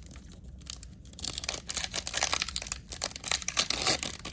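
Foil trading-card pack wrapper being torn open and crinkled, a dense crackling that starts about a second in.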